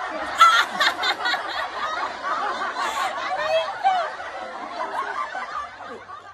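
A woman laughing and giggling almost without a break as hardened wax is peeled slowly from her underarm; the laughter fades out near the end.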